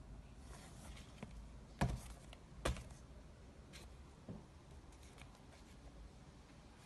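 Handling noise from a sneaker being turned over in the hands: two sharp knocks a little under a second apart, a softer one a couple of seconds later, and faint rustling.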